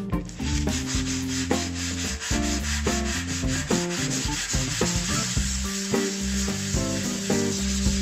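A 3D-printed plastic plaque rubbed back and forth by hand on a sheet of sandpaper, a steady scratchy hiss as its face is sanded smooth. Background music with a beat plays underneath.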